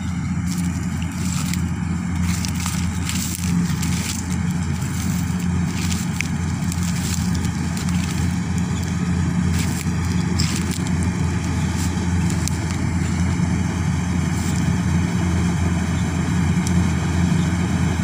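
Combine harvester running steadily as it cuts wheat: a constant low engine drone, with scattered crackles over it.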